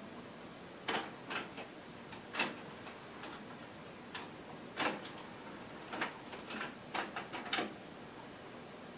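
Tape transport of a Pioneer CT-M6R six-cassette changer clicking while it winds or searches through the tape: about a dozen sharp, irregular clicks, some in quick pairs, over a steady low hiss.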